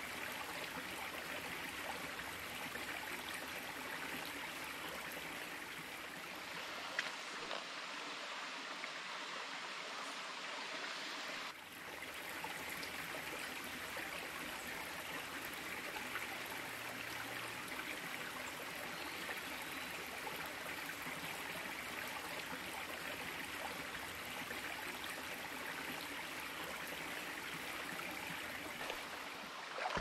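Small brook trout stream at low flow, water running and trickling steadily over rocks.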